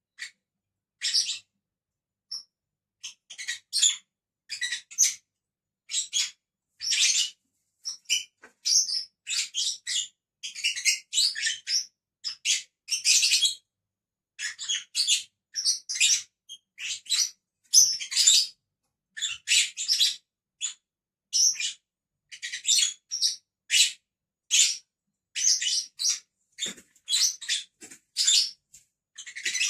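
Pet lovebirds chattering: quick runs of short, high-pitched chirps, one cluster after another with only brief pauses.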